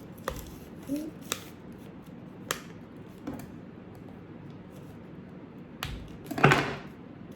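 Plastic slime packaging being handled and pried at while someone struggles to open it: a few scattered clicks and crinkles, then a louder rustle about six and a half seconds in.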